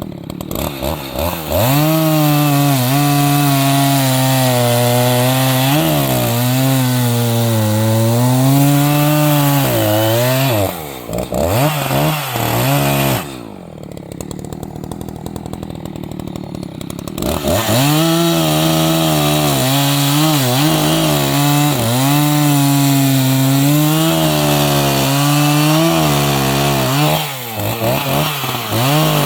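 Echo CS-590 Timber Wolf two-stroke chainsaw revving up to full throttle and running under load, the engine pitch dipping and recovering as it cuts through logs. It drops to idle for a few seconds in the middle, then revs up for a second long cut and blips near the end.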